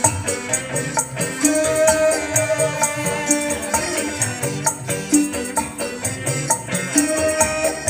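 Music with a fast, steady percussion beat, played loud through a newly built twin-woofer speaker cabinet being tried out.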